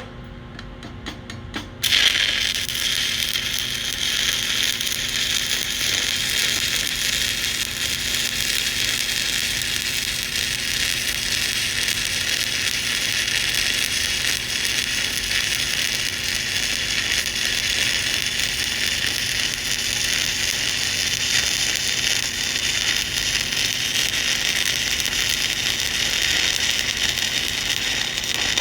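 Stick-welding arc on a 7018 electrode run DCEP, restarting a bead: a few scratching clicks as the arc is struck, then about two seconds in it catches and runs as a steady, crackling sizzle.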